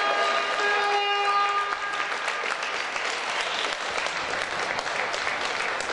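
Spectators clapping and applauding, a dense patter of many hands. A held pitched tone sounds over it for about the first second and a half.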